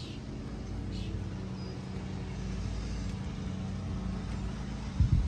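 A steady low mechanical hum, with a couple of faint bird chirps about a second in. Near the end come two heavy thumps of footsteps on the caboose's steel platform.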